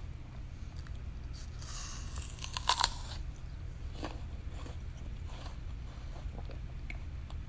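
A person bites into a crisp apple: a crunch starting about a second and a half in, with sharp cracks near its end, followed by scattered smaller crunches as the bite is chewed.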